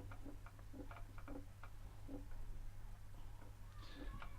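Faint, irregular small clicks and taps of a hand tool turning a screw into a metal bracket on the 3D printer, with a low steady hum underneath.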